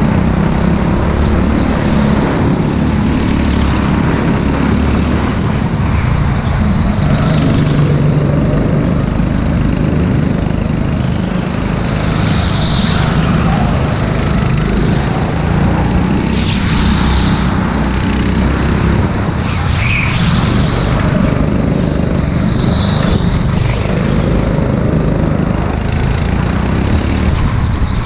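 Go-kart engine running under load from on board the kart, its pitch rising and falling with the throttle through the corners.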